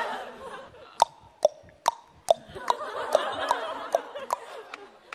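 Studio audience laughter dying away, followed by a run of about nine sharp clicks, a little over two a second, that stop near the end.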